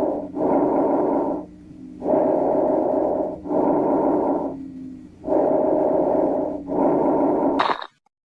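Recorded lung sounds heard through a stethoscope: repeated breaths in and out, each a rushing sound about a second long with brief dips between them. A faint low steady tone shows during the quieter phases, and the recording stops abruptly near the end.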